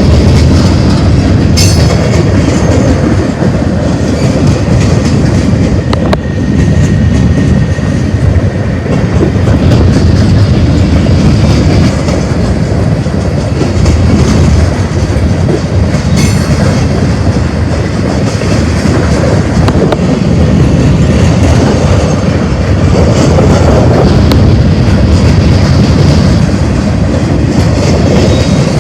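Freight cars of a long manifest train rolling past close by: a loud, steady rumble of wheels on the rails with a clickety-clack over the rail joints and an occasional sharp click.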